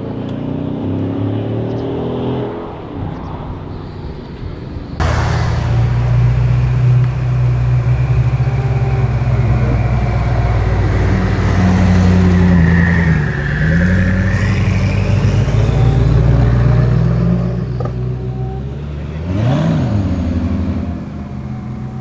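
Supercar engines running at low speed, a steady deep drone with a brief dip in pitch about halfway through. A quick rev blip rises and falls near the end. The sound changes abruptly about five seconds in as one car gives way to another.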